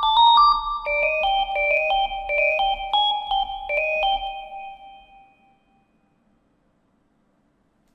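FL Studio 3xOsc synthesizer playing a 'Mid Sine Lead' preset: a short melody of clean, sustained sine-tone notes. The last note rings out and fades about five seconds in.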